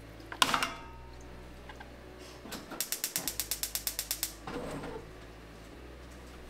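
A single knock, then a quick run of even, ratchet-like mechanical clicks, about ten a second for under two seconds.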